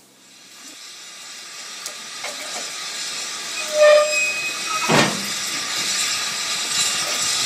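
Narrow-gauge steam locomotive standing with steam hissing, the hiss swelling over the first few seconds and then holding steady. A short whistle toot comes just before four seconds in, the loudest moment, and a single sharp knock follows about a second later.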